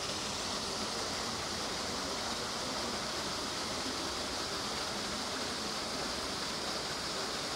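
Steady, even rushing hiss that holds at one level throughout, with no distinct events standing out.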